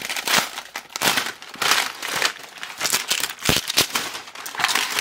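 Crinkling and crackling of clear plastic wrap being peeled and torn off a large toy egg, in irregular bursts. Two dull knocks come a little after halfway.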